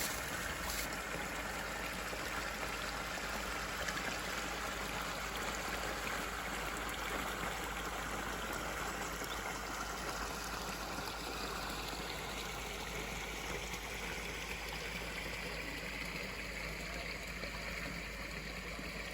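A small stream running steadily, with an even rushing trickle of water.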